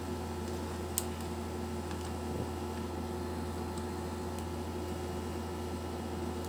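Steady low electrical hum with faint hiss, and one short sharp click about a second in as an earphone cable is handled.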